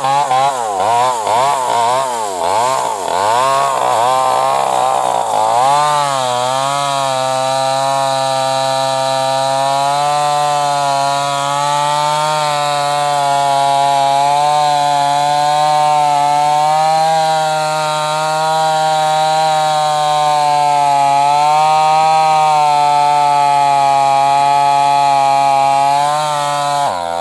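New West 588 two-stroke chainsaw with an open straight-through muffler, its revs rising and falling quickly for the first few seconds, then held high and nearly steady for about twenty seconds before cutting off near the end.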